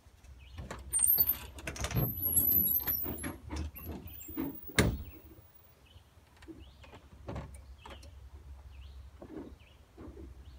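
Scattered knocks, clicks and rubbing of someone moving about and handling things, with a door being opened and shut and a sharp click about five seconds in.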